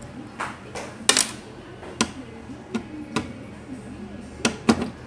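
Irregular sharp clicks and knocks, about seven in five seconds, from hands working on a flat-screen TV's chassis: plastic and metal parts and board connectors being handled during a mainboard swap.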